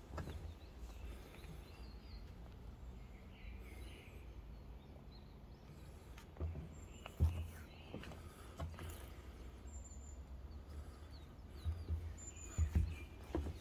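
Faint, distant songbirds chirping and whistling in short calls, with the walker's footsteps thudding on a forest path, several steps in the second half.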